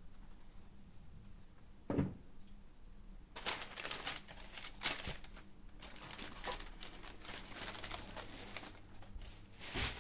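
Tissue paper in a shoebox rustling and crinkling as a sneaker is handled and laid in it, with a dull thump about two seconds in and another near the end.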